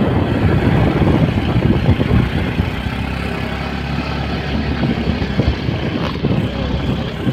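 A vehicle on the move: continuous engine and road rumble, a little louder in the first couple of seconds.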